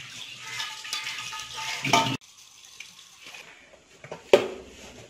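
Water splashing over raw fish pieces in an aluminium pan as they are rinsed, with the metal ringing faintly; it stops abruptly about two seconds in. After that, quiet room sound and a single sharp knock near the end.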